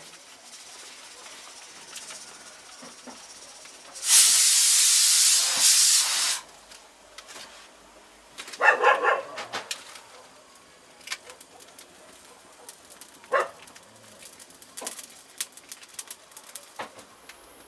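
A plucked chicken singed over an open wood fire, with scattered sharp crackles near the end. A loud, steady hiss lasts about two seconds a few seconds in, and a dog barks briefly around the middle.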